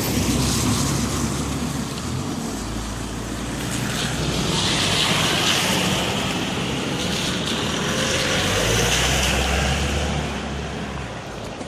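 Road traffic on a wet road in the rain, with tyre hiss and engine rumble. The sound swells twice as vehicles go by, about five seconds in and again near nine seconds.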